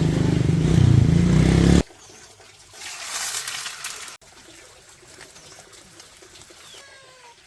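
A motor running steadily, which cuts off abruptly about two seconds in. About a second later comes a brief rushing hiss like running water, then only faint background sound.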